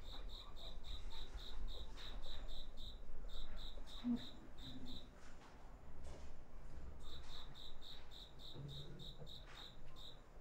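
A cricket chirping in a steady run of short, high chirps, about four or five a second, stopping for a couple of seconds about halfway through and then starting again, over a low hum.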